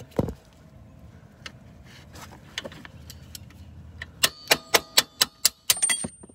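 Flathead screwdriver knocking against the steel strut mounting bracket of a car's front suspension: a run of sharp, ringing metallic clicks, about four a second, starting about four seconds in, after a few scattered clinks.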